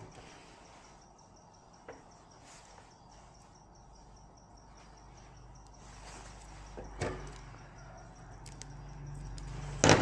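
Faint, even insect chirping, with a few sharp clicks and knocks and a loud knock near the end.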